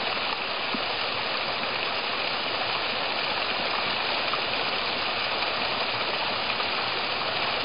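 Small waterfall on a brook pouring into a pool: a steady rushing of water.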